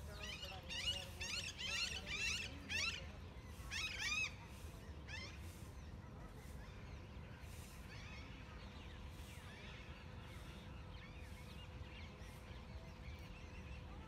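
A run of sharp, arching animal calls, repeated about twice a second over the first four seconds or so, then fainter calls now and then, over a steady low background rumble.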